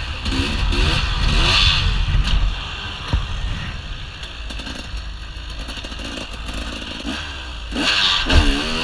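2013 KTM EXC 300 two-stroke enduro motorcycle with an FMF exhaust, heard from on board: it revs up in several quick rising pulls, eases off to a lower, quieter run about three seconds in, then revs up again near the end. Wind rushes on the microphone throughout, and there is a single click about three seconds in.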